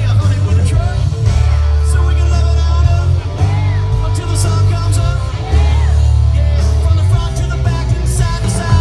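Live country-rock band playing loud over a PA, with a singer, electric guitar, drums and heavy bass.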